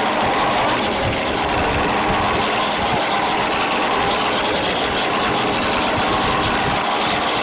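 Fishing boat's engine running steadily, with a continuous rush of wind and water.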